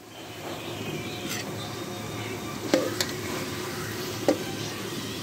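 Metal spoon stirring and scooping cooked cauliflower and potato curry in a metal pot, with three sharp clinks of the spoon, about two and three seconds in and again near four seconds. A soft steady sizzle from the pot runs underneath.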